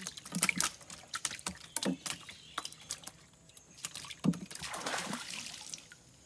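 Irregular knocks and clatter as a fishing net is handled, followed by a rushing splash of water about four and a half seconds in.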